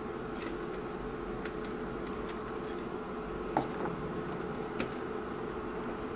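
Light plastic clicks and taps as a VW Fox instrument cluster's plastic housing is handled and turned over on a desk, the two clearest about halfway through and a second later, over a steady background hum.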